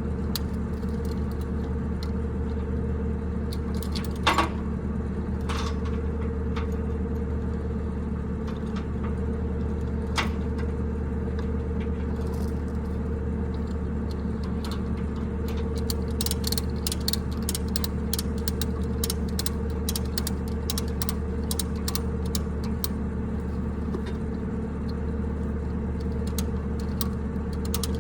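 An engine idling steadily, with a sharp click about four seconds in and a run of light ticks and clicks over the second half.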